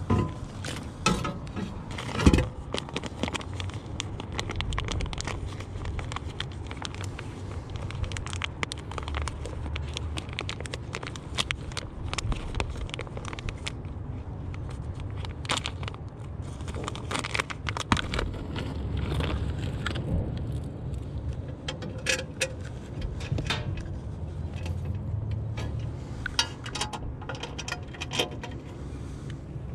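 Metal parts of a furnace inducer-motor assembly being handled: scattered clinks, knocks and scrapes at irregular intervals, the loudest a sharp knock about two seconds in, over a steady low rumble.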